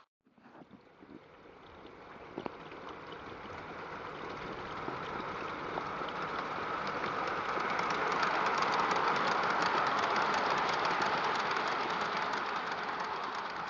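G-scale garden model train running on outdoor track: the electric motors and gearing of the locomotive and a motor-block powered goods wagon, with the wheels clicking rapidly over the rails. The sound grows louder as the train comes up, is loudest as it passes close about eight to ten seconds in, then fades as it moves away.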